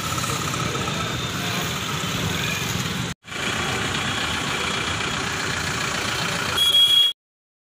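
Street traffic ambience: engines of passing and idling vehicles in a steady, dense mix, broken by a brief cut about three seconds in. Near the end it gets louder for a moment, with a short steady high tone.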